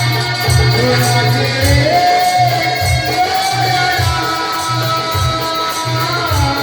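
Background music with a steady pulsing bass beat, a sustained melody line that glides between notes, and light percussion ticking above it.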